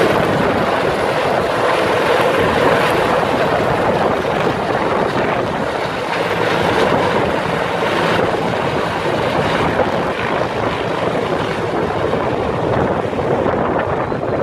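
Canadian military helicopter flying overhead, its rotor and engine noise loud and steady, easing off slightly as it moves away.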